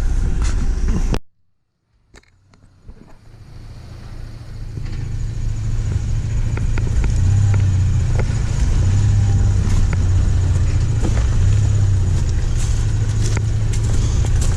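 Jeep Gladiator crawling over a rough trail: a steady low engine and drivetrain rumble with scattered sharp knocks. The sound cuts out for about a second near the start, then fades back in.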